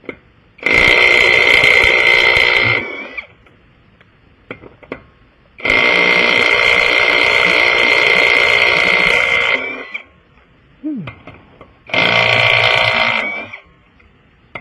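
Impact wrench running in three bursts of a few seconds each, with short pauses and small clicks between them, as when lug nuts are spun off a wheel.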